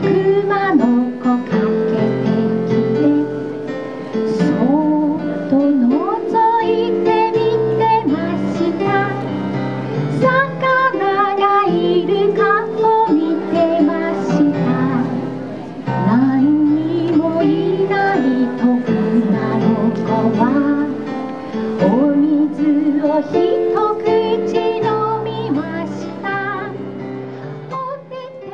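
A woman singing a Japanese children's song with electronic keyboard accompaniment. The music fades out at the very end.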